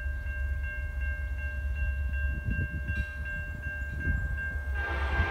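Grade-crossing warning bell ringing with evenly repeated strokes over a low rumble. Near the end, the approaching freight train's locomotive horn starts sounding, a loud chord of several notes.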